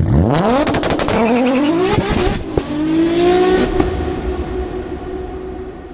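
Car engine revving hard in two fast rising pulls, with a few sharp cracks in between. A steady held tone then slowly fades away.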